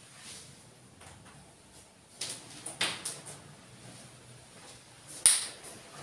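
Rustling and handling noises from a person moving about, with a few soft clicks and one sharp knock about five seconds in.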